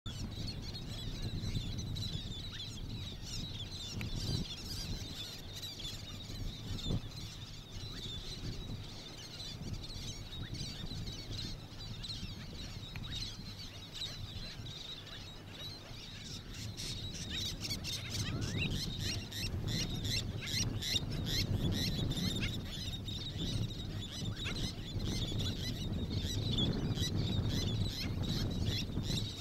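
Many birds calling in short, high notes, growing denser and louder in the second half, over a low steady rumble.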